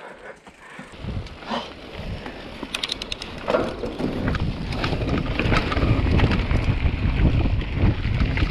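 Wind buffeting the microphone and the rumble and rattle of a mountain bike rolling over a trail, starting faint and growing loud over the first four seconds, with a few sharp clicks along the way.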